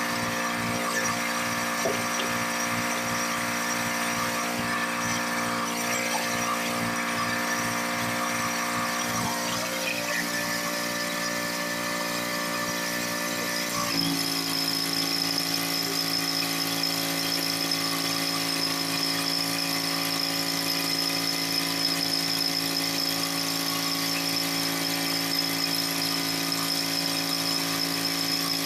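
Pressure washer running steadily with a whining tone. About halfway through its note changes abruptly and a high steady whine comes in.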